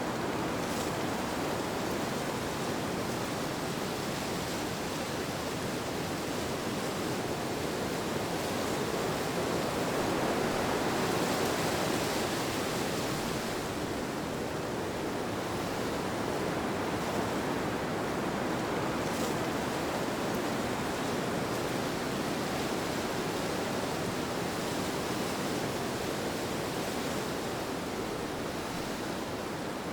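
Steady rushing wind noise with no distinct events, swelling slightly and easing off again about a third of the way through.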